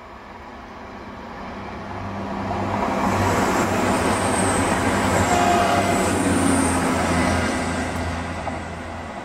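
Virgin Voyager diesel multiple unit passing at speed: the underfloor diesel engines hum and the wheels rush on the rails. The sound builds to its loudest about three to seven seconds in, with a faint high whine near the peak, then fades as the train draws away.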